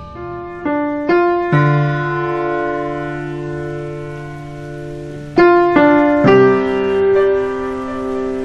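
Background keyboard music: four notes struck one after another and held as a chord, then a second run of notes about five seconds in, held again.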